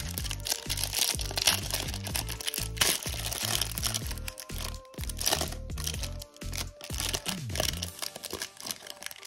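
Clear cellophane wrapper crinkling and crackling as it is peeled off a stack of trading cards, over background music with a stepping bass line that stops about eight seconds in.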